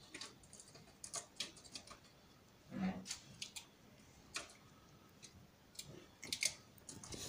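Faint, irregular clicks of 9 mm cartridges being pressed one at a time into a 15-round XD(M) pistol magazine, with one dull thump about three seconds in.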